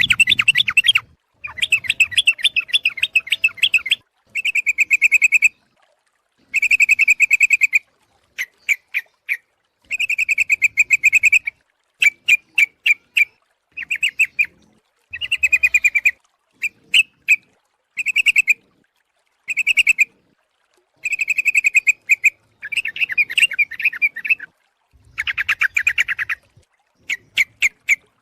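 Yellow-vented bulbul (trucuk) calls played as a lure recording: quick runs of chattering notes in short phrases of about a second, repeated over and over with brief silent gaps. The uploader presents it as a female calling a male.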